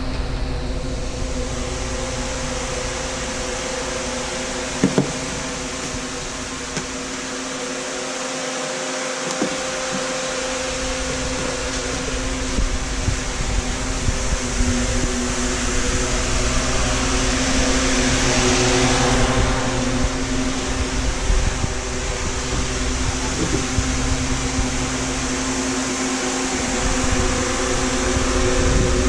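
An electric fan motor running steadily, a constant whirring hiss with a steady hum under it. A short knock about five seconds in.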